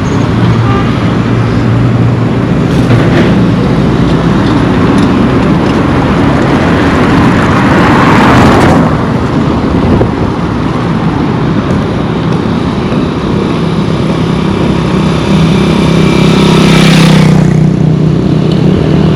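Road traffic on a busy highway: a steady roar of tyres and engines, with one vehicle passing close about eight seconds in and another vehicle with a strong engine hum passing near the end.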